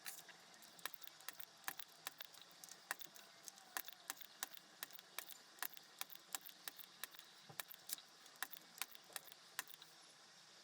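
Faint, irregular small clicks and taps of tools on a circuit board and component legs while transistors are being desoldered, roughly two to four clicks a second.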